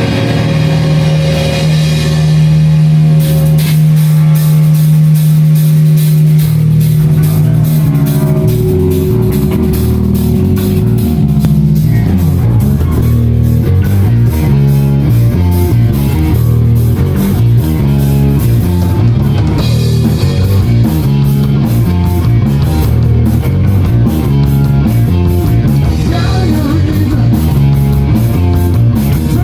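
Loud rock music with guitar and drum kit: a long held low note at the start, then a steady beat with cymbals joining a few seconds in.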